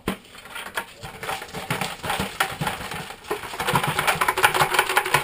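Perforated metal sifter shaken by hand, with small bits rattling and pattering against the metal in a dense run of ticks that grows louder toward the end.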